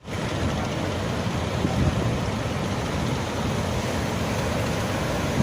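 Strong wind buffeting the microphone in uneven gusts over the rushing noise of the sea.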